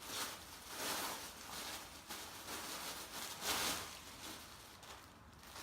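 Gift packaging rustling as it is handled and opened by hand, in a few noisy swells; the loudest comes about three and a half seconds in.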